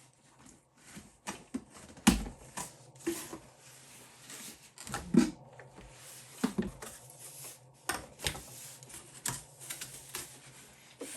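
Packaging and parts of a new carpet extractor being handled during unboxing: irregular clicks, taps and knocks of plastic pieces and cardboard, with the strongest knocks about two and five seconds in.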